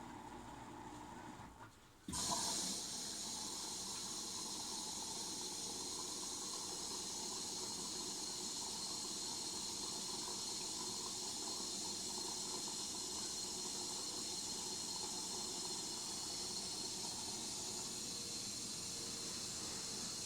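Washing machine: a low hum for about two seconds, a short pause, then a sudden click and a steady hiss of water running into the machine as it fills.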